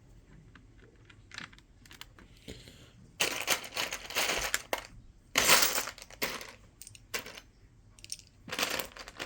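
Loose plastic Lego pieces rattling as a hand rummages through them, in three loud bursts in the second half, with small clicks of bricks being handled between.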